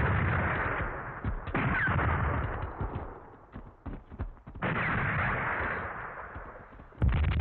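Film battle sound effects of explosions and gunfire: a blast already dying away at the start, then three more sudden blasts, each trailing off into a long rumble, with scattered sharp cracks between the second and third.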